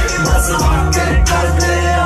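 Loud Punjabi bhangra dance music played by a DJ, with a heavy bass line and a steady percussion beat; the bass drops out for a moment at the start.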